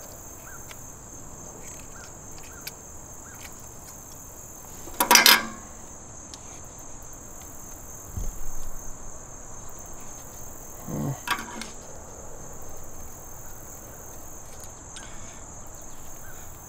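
Steady high-pitched chorus of insects. A few light clicks come in the first few seconds, with a brief loud rustle about five seconds in and a smaller one about eleven seconds in.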